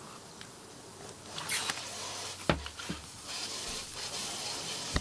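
Soft chewing and mouth sounds of people eating sub sandwiches, with a sharp knock about two and a half seconds in as a glass mug is set down on the glass table, and another small knock near the end.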